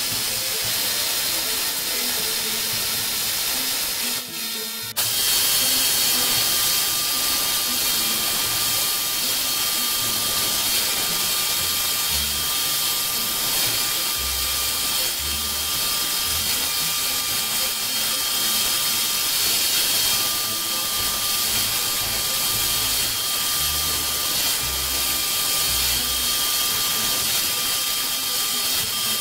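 CNC milling machine's end mill cutting an aluminum plate, heard as a steady hiss from the nozzle blowing at the cutter over a steady high cutting whine. There is a brief drop about four seconds in and an on-and-off low hum through the second half.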